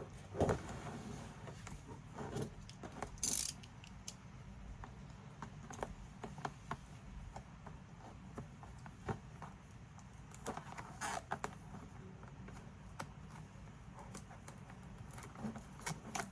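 Plastic keyboard keycaps and their packaging being handled, giving scattered light clicks and small clatters, with louder clatters about three seconds in and again about eleven seconds in.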